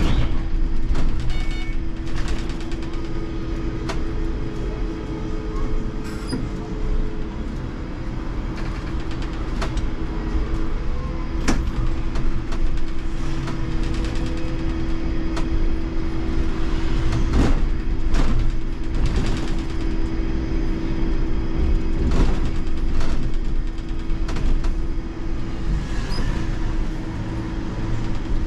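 Trolleybus driving, heard from inside the driver's cab: a steady electric hum over a low road rumble, with occasional sharp knocks and rattles.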